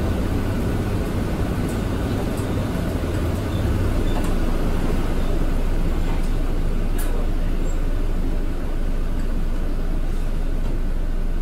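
Steady engine and road noise heard from inside a moving city bus, a low rumble that grows slightly louder about four seconds in.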